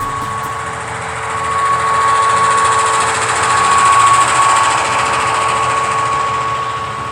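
HO-scale Rapido SD10 model diesel locomotive running, its motor and wheels whining steadily with the diesel engine sound from its onboard speaker; the sound swells in the middle and fades toward the end as it passes.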